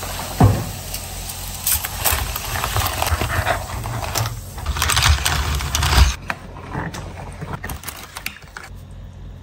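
Metal spoons and forks clinking and clattering against each other as they are dropped and set into a bowl of water, with many clinks in the first six seconds and then sparser, lighter clinks.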